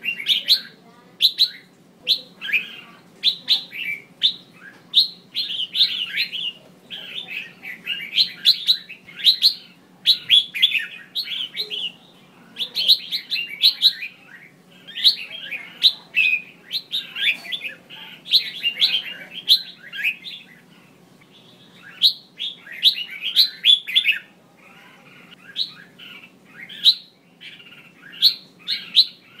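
Female red-whiskered bulbul calling: quick bursts of sharp, high chirps and chatter, with a short lull about two-thirds of the way through.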